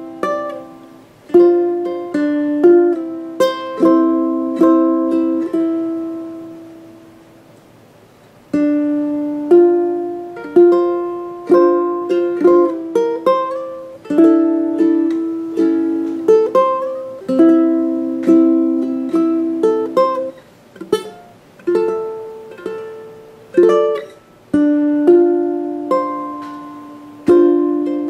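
PONO MPT-E tenor ukulele played solo, plucked melody notes and chords that each ring out and decay. A little after five seconds in the playing stops and the last notes fade away for about three seconds before it resumes.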